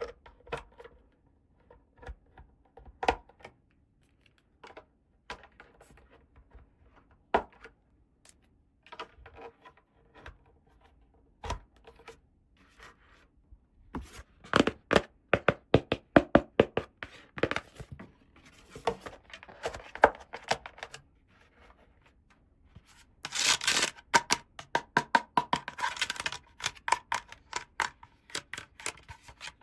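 Small plastic toy pieces being handled: scattered clicks and taps, then two runs of quick, dense clicking with some rustling in the second half.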